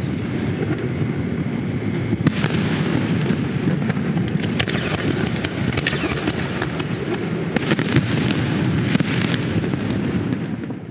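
Aerial fireworks display: a dense, continuous run of shell bursts and crackling over a steady low rumble, fading away near the end.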